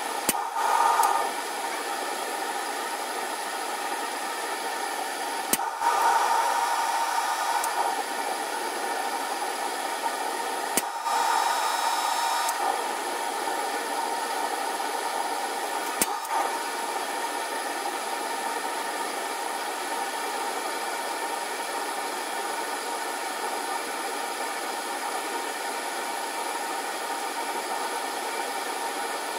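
PID-controlled forge running with a steady rushing noise, sped up fourfold, while held near its 1750-degree set point. Four sharp clicks come about five seconds apart, and the first three are each followed by a second or two of louder running.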